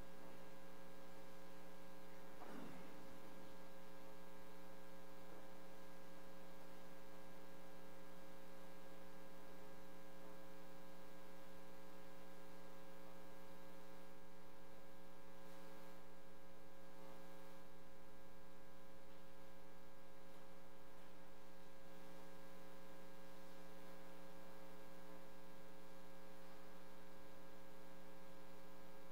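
Steady electrical mains hum, several steady tones held without change. A faint brief sound comes about two and a half seconds in.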